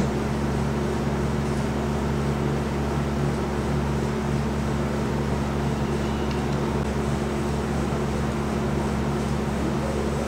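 A steady low hum with several fixed pitches over a constant hiss, unchanging throughout.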